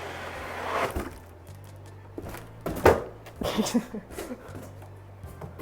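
Cardboard box and packing of a studio monitor being handled and turned over: a scraping rustle, then a few knocks and thunks, the loudest about three seconds in.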